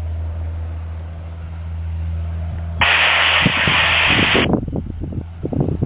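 Steady low hum, then about three seconds in a burst of hissing airband radio static, about a second and a half long, that cuts in and off sharply: a transmission keyed with no voice on it. It is followed by irregular low rumbles.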